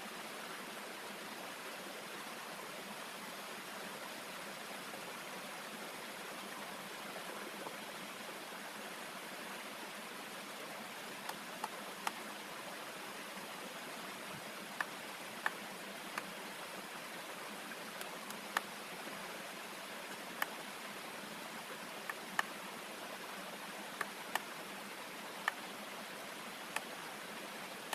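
Stream rushing steadily over rocks. From about eleven seconds in come a dozen or so sharp knocks at irregular intervals: a knife chopping raw chicken on a wooden tree-stump block.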